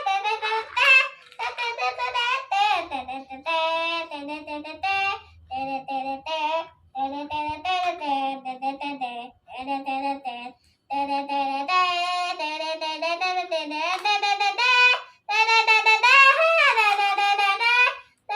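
A child singing in short phrases of held, wavering notes, with brief pauses between them.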